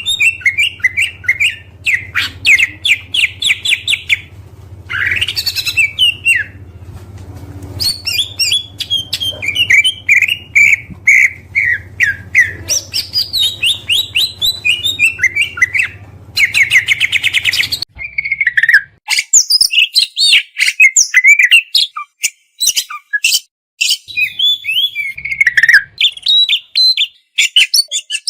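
Oriental magpie-robin (kacer) singing a varied, loud song of whistled phrases, fast trills and rapid repeated-note runs. A low hum under the song stops abruptly about two-thirds of the way in.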